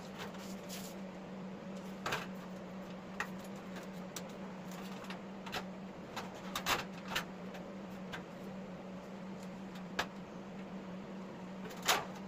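Hands working a thin white sheet and a rusted steel mower deck on a concrete floor: scattered taps, light scrapes and rustles as the sheet is laid over the deck and shifted, with a cluster of taps about halfway through and the sharpest knock near the end. A steady low hum runs underneath.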